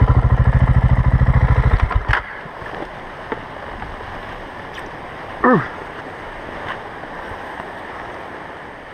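Single-cylinder engine of a KTM 690 Enduro motorcycle idling with a steady pulse, then switched off about two seconds in. After that only a steady hiss of wind and water remains, with one brief falling call about halfway through.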